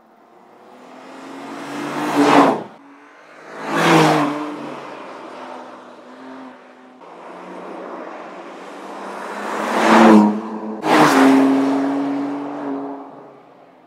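BMW M2 Competition's 3.0-litre twin-turbo inline-six on a race track, passing several times at speed. The engine note swells as the car nears and falls away as it goes. The sound cuts off suddenly between passes.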